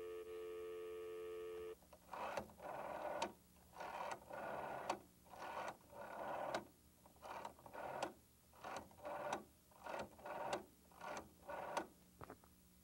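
Telephone dial tone, cut off after about two seconds. Then the finger dial of a black rotary wall telephone is turned and whirs back again and again, clicking, as a seven-digit number is dialed.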